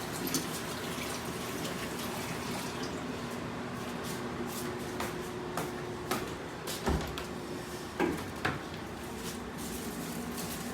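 Kitchen work sounds: a steady hum with a faint steady tone under it that fades out about eight seconds in, and scattered short knocks and clicks.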